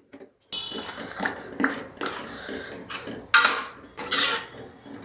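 A metal masher pressing and scraping thick cooked vegetable mash in a metal pot, then a metal ladle stirring and knocking against the pot, starting about half a second in. Two louder strokes come about three and four seconds in.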